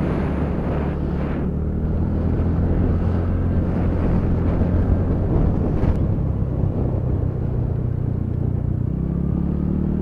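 TVS Ntorq 125 scooter's single-cylinder engine running steadily while riding.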